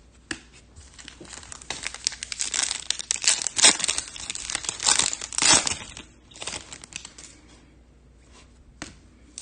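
Foil wrapper of a trading-card pack being torn open and crinkled, with dense crackling for a few seconds and a few small clicks after.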